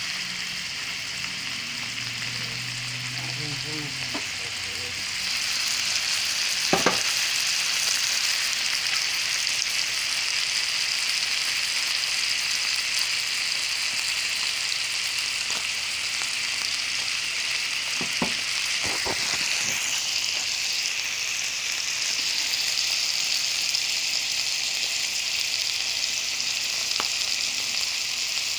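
Skinless chicken breasts frying in melted butter in a skillet: a steady sizzle that grows louder about five seconds in. A sharp knock comes about seven seconds in, and a couple of lighter ones later.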